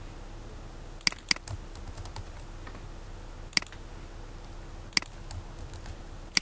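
Computer keyboard and mouse in use: a handful of sharp, separate clicks with fainter key taps between them as a password is entered.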